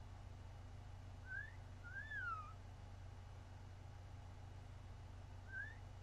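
Pet European starling whistling a two-part phrase about a second in: a short rising whistle, then a longer one that rises and falls. The same phrase starts again near the end.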